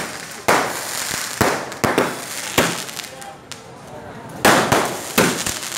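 Firecrackers going off in an irregular string of loud bangs, about seven of them, each with a crackling hiss after it.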